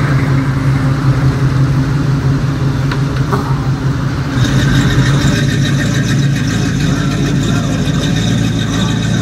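Classic muscle car engines running at a steady low idle as the cars roll slowly away: first an early-1970s Ford Maverick, then, after a change about four seconds in, a 1969 Chevrolet Camaro.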